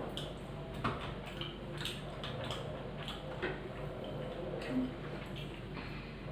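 Eating by hand: irregular clicks and wet smacks of chewing and of fingers working curd-soaked rice (dahi pakhala) on plates, over a steady low hum.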